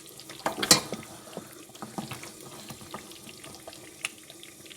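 Tomato stew frying in a pot, a low crackling with small pops, broken by two sharp metal knocks of pot or lid a little under a second in and one more click near the end.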